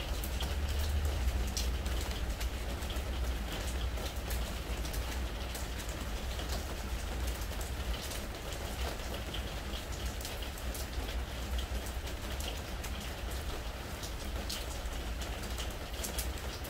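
Spring rain falling on a pressure-treated wood deck: a steady patter full of sharp individual drop ticks, over a low steady rumble.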